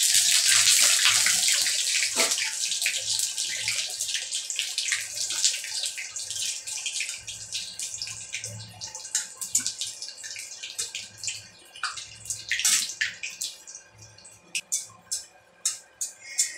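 Dried red chillies, bay leaves and whole spices sizzling in hot oil in a kadai, loudest just as the chillies go in and dying down over the following seconds. Sharp pops and clicks of spitting oil and a steel spatula stirring the pan stand out more as the sizzle fades.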